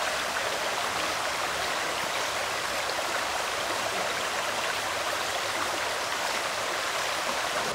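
Stream water running over rocks: a steady rushing hiss.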